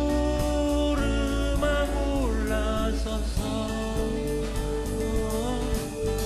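A man singing a slow song in long, held notes, accompanied by acoustic guitar and a steady bass line in a live band performance.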